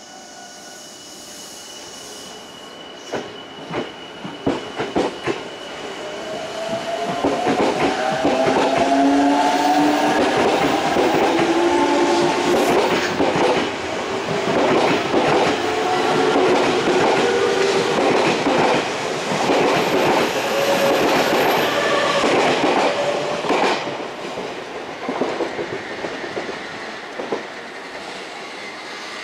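Odakyu 30000 series EXE Romancecar electric train pulling out and accelerating past. Its wheels click over the rail joints, and from about six seconds in the rising whine of its traction motors joins them. The sound is loud while the cars go by and eases off after about twenty-four seconds as the train draws away.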